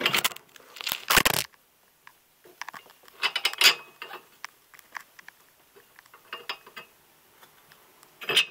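Irregular metal clinks and knocks, some with a short ring, as the rear axle of an early Kawasaki Ninja 250 is worked out of the wheel and swingarm. The knocks come in clusters, with a quiet gap about two seconds in and a louder clink near the end.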